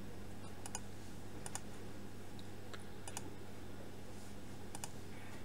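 A handful of light computer mouse clicks, spaced about a second apart, as an on-screen pen colour is picked, over a steady low electrical hum.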